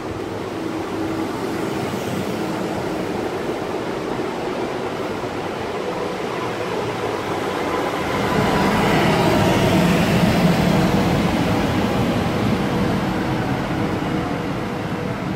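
PESA Elf electric multiple unit running along the platform: wheel and rail rumble with steady whining tones from its electric drive, growing loudest as the cars pass close about eight to eleven seconds in, then easing off.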